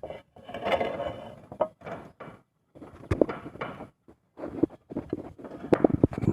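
Irregular rustling with scattered clicks and knocks, coming in short spells separated by brief pauses.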